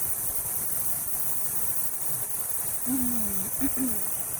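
Cicadas droning steadily in a high, even hiss over a low rumble. About three seconds in, a brief low hum falls in pitch, followed by two shorter ones.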